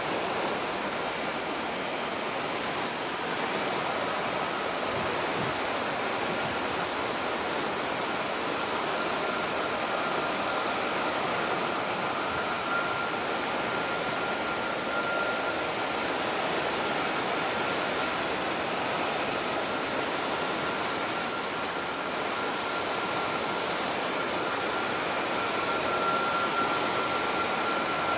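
Airbus A321neo's Pratt & Whitney geared turbofan engines running at low taxi power: a steady rushing noise with a faint high whine that grows stronger near the end.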